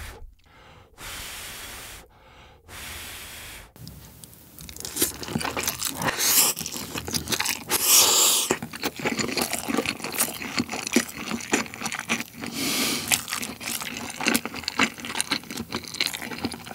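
Mouth sounds of a man eating a scalding-hot mouthful of Buldak ramen noodles with melted cheese, close to the microphone. First come two long breaths puffed out to cool the food, then continuous wet chewing and slurping, with a strong huff of breath about eight seconds in.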